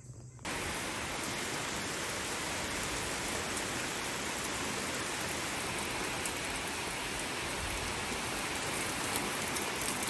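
Heavy rain pouring down, a steady dense hiss that starts abruptly about half a second in.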